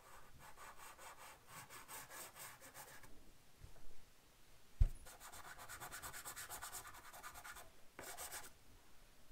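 Chalk pastel stick scratching over paper in quick back-and-forth strokes, several a second, in bouts with short pauses. A single sharp knock about five seconds in.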